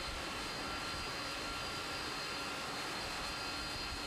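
Jet airliner's engines running as the plane taxis: a steady rushing noise with thin, high whining tones held on top.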